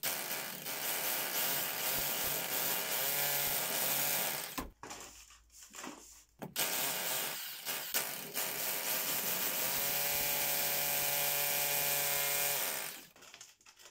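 SDS hammer drill with a 16 mm masonry bit hammer-drilling into a concrete floor, in two bouts: it stops about four and a half seconds in, starts again about two seconds later and runs until near the end, its motor pitch rising toward the end of each bout.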